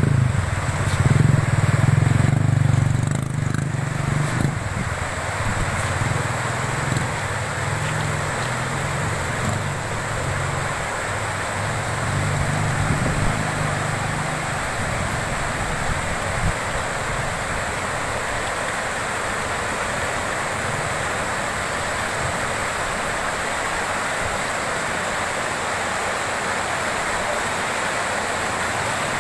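Floodwater rushing across a road: a steady, even rushing noise. A low engine hum sits under it, loudest at the start and fading out about halfway through.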